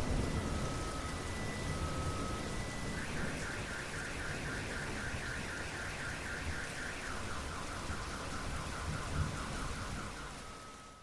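Steady rain with a car alarm going off over it, cycling through its tones: an alternating two-note beep, then a fast warble from about three seconds in, then a lower rapid chirp from about seven seconds in. A low thunder rumble dies away at the start, and everything fades out just before the end.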